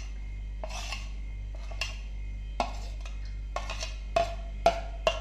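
Metal spoon knocking and scraping against stainless-steel plates and a steel mixing bowl as chopped ingredients are pushed in. The sound is a string of sharp, irregular clinks and knocks, about nine in five seconds, with the loudest near the end.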